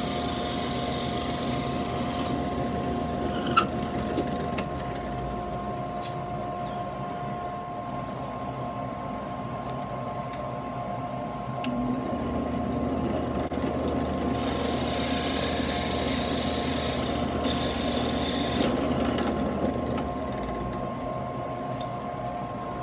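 Benchtop drill press running with a steady hum while its bit bores through small wooden wheel pieces. The cutting noise rises at the start and again for about five seconds past the middle, and there is one sharp click a few seconds in.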